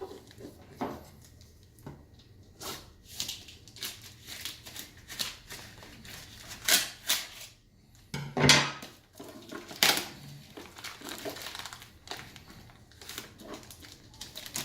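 Plastic and cardboard packaging being handled and torn open, with scattered crinkles, rustles and knocks. A louder, lower sound comes about eight and a half seconds in.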